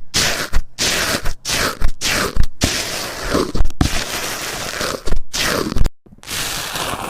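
Slime being squeezed and pressed by hand, making a run of crunchy, crackling squelches, each starting with a soft thump, about two a second. It breaks off for a moment about six seconds in.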